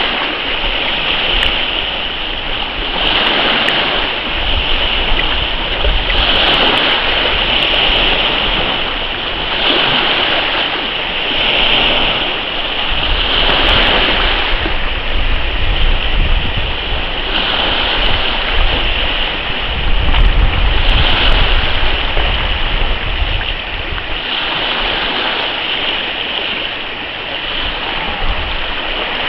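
Choppy sea water splashing and rushing, surging every two to three seconds, with wind rumbling on the microphone.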